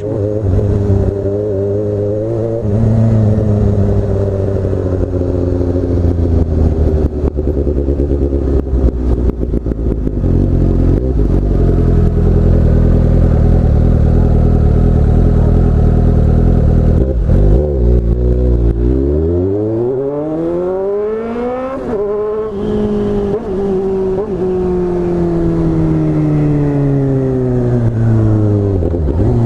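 Motorcycle with a very loud exhaust riding along at a steady engine note, then revving up hard with a sharp rise in pitch about two thirds of the way in, and falling slowly in pitch as it slows near the end.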